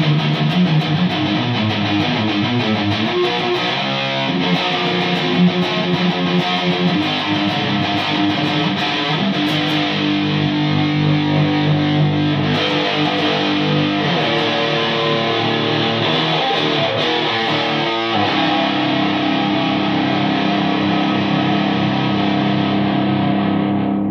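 Electric guitar played through a home-built high-gain valve amplifier that uses 1930s AF7 and AL4 tubes. Sustained distorted chords change every few seconds, with the amp's mids turned right down, and the playing stops suddenly at the end.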